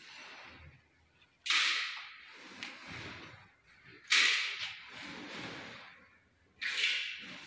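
Three sharp hissing whooshes close to the microphone, about two and a half seconds apart, each starting suddenly and fading over about a second.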